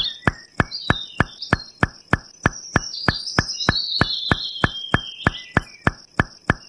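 Added soundtrack of steady, evenly spaced clicks, about three a second, with high wavering chirps above them.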